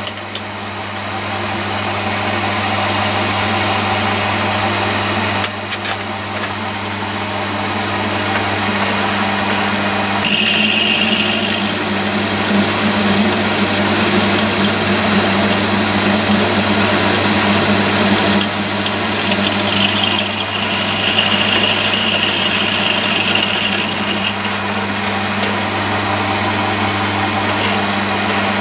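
Milling attachment spindle running on a Myford ML7 lathe, with an end mill cutting a keyway slot in a steel shaft: a steady motor hum with cutting noise. A higher whine comes in briefly about a third of the way in and again for a few seconds past the middle.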